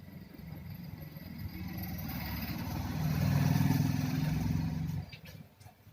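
A motor vehicle engine running, growing steadily louder for a few seconds, then dropping away suddenly about five seconds in.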